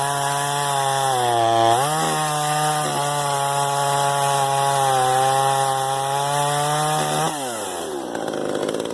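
Small off-brand top-handle two-stroke chainsaw running at high revs, cutting wood. Its pitch dips briefly about a second and a half in and recovers, then near the end the throttle is released and the engine winds down.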